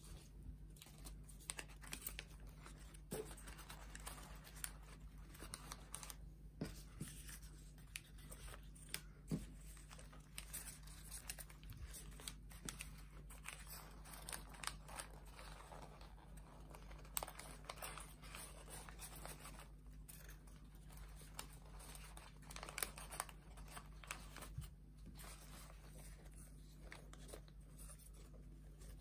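Faint rustling and crinkling of folded origami paper units as hands slot them together and shape a 30-unit kusudama, with many small irregular paper clicks and scrapes.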